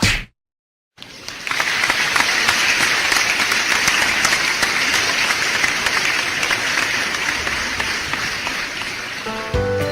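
A crowd applauding, starting about a second in and slowly getting quieter, with music beginning near the end.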